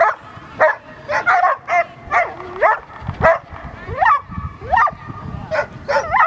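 A dog barking repeatedly in high yips, about two a second, some sliding up or down in pitch like whines.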